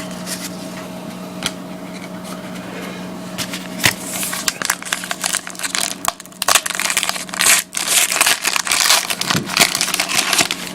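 Crinkling and tearing of a trading-card pack's wrapper as it is opened, with rustling of the cards being handled, over a steady low hum.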